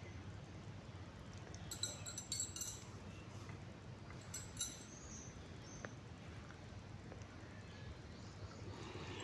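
A kitten batting and biting the plug of a charger cable, which clicks and clatters against a stone floor in two short bursts, about two seconds in and again about four and a half seconds in.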